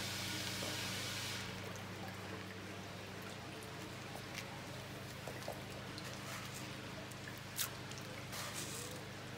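Water splashing in a fish tank: a steady rush of water for about the first second and a half, then scattered small splashes and drips as goldfish and small koi break the surface for food pellets, the sharpest one about 7.5 seconds in, over a low steady hum.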